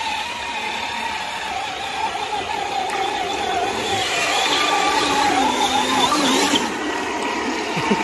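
Whine of a 1/10-scale RC crawler's electric motor and gears as it churns through muddy water, the pitch wavering up and down with the throttle and cutting off about six and a half seconds in.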